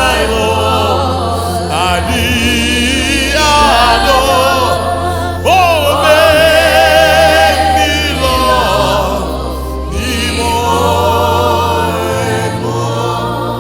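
Gospel worship music: voices singing sustained lines with heavy vibrato over steady, held low accompaniment notes.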